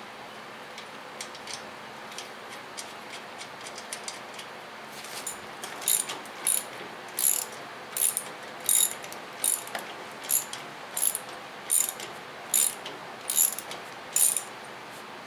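Socket ratchet wrench clicking as 10 mm bolts are tightened: light scattered clicks at first, then from about a third of the way in a steady run of ratchet strokes, a little more than one a second.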